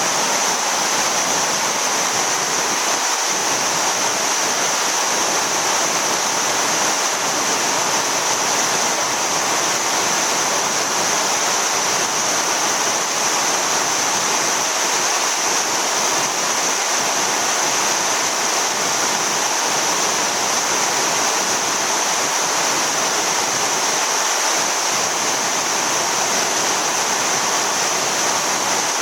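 Yudaki waterfall's water pouring and splashing down the rock face as a steady, unbroken rush.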